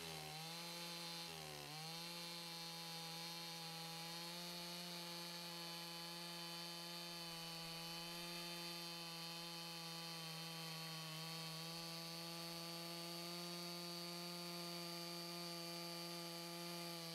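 Makita gas chainsaw running at full throttle while its Forester carbide-tooth, semi-chisel chain cuts down through a stack of pine 4x4s. The engine pitch dips twice near the start as the chain bites, then holds steady through the long cut.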